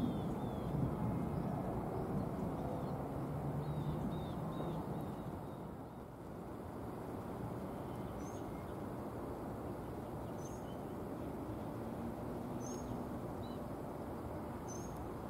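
Small birds chirping, a short high call repeating about every two seconds in the second half, over a steady low background rumble that eases off about six seconds in.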